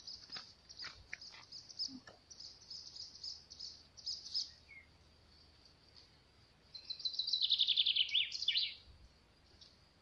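Small songbirds singing: a run of quick, high chirps for the first four seconds or so, then a louder trill falling in pitch near the end.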